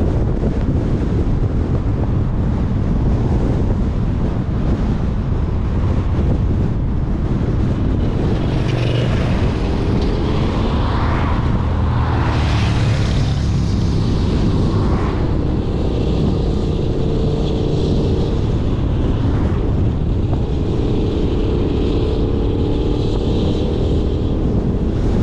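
Steady road and wind noise from a car driving at speed, with wind buffeting the microphone. A few oncoming vehicles swish past in the middle. An engine note rises slightly near the end.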